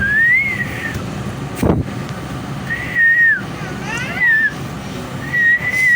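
Human whistling: several sliding, wavering notes, each under a second long, over a steady low rumble of engines and traffic, with one low thump just under two seconds in.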